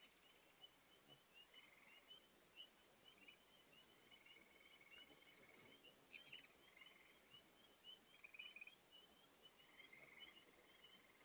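Faint, rapid high chirps from hummingbirds crowding the feeder ports, running on steadily with short buzzy notes now and then, over the steady hush of a large spring far below. A single sharp click about six seconds in.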